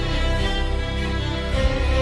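Background music with bowed strings and guitar over a steady bass.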